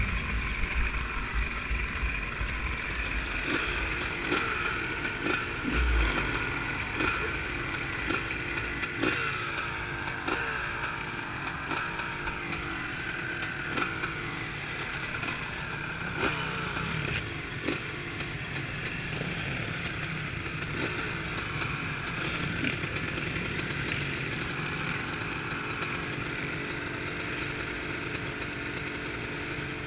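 Two-stroke dirt bike engine running off-road, its pitch rising and falling as the throttle changes. Many short clattering knocks come through, with low wind buffeting near the start.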